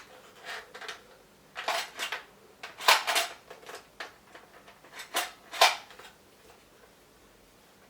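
Small hard toy parts and packaging being handled: a run of short clatters and rattles, loudest about three seconds in and again near five and a half seconds.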